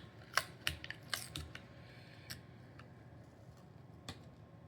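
Fingernails picking and scraping at torn protective paper on an acrylic panel: a quick run of small clicks and scratches in the first second and a half, then a few isolated ticks.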